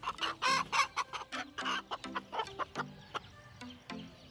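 Aseel chickens clucking in a fast run of short calls, loudest in the first two seconds and softer after, as a rooster seizes and mounts a hen.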